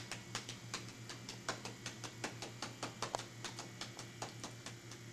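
Cupped, gloved hands clapping on a patient's upper back through clothing in a quick, even rhythm of several claps a second. This is manual chest percussion, the chest physiotherapy technique that loosens lung secretions so they can be coughed up.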